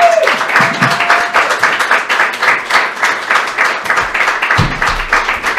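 Audience applauding, dense and steady, with a long held voice over the first second or so.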